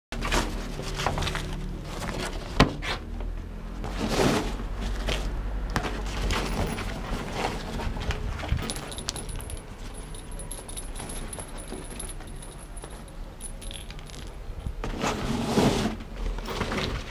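Pet toys in play on a tile floor: a fabric play tunnel rustling, with scattered small knocks, one sharp knock about two and a half seconds in, and light metallic jingling.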